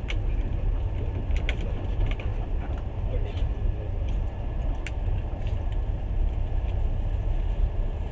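Passenger train carriage running along the track: a steady low rumble with scattered small clicks, creaks and rattles.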